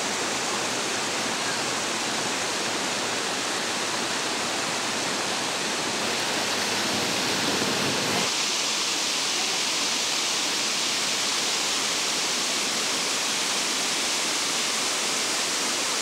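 Small stream of spring water tumbling over rocks in a little cascade: a steady rush of water. About halfway through, the sound turns thinner, losing some of its deeper rush.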